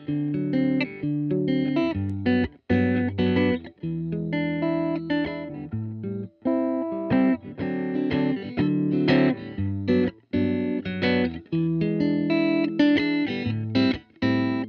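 Electric guitar playing a riff of picked notes and chords through a six-band EQ pedal, in phrases of a few seconds with short breaks between them, while the pedal's EQ knobs are being turned.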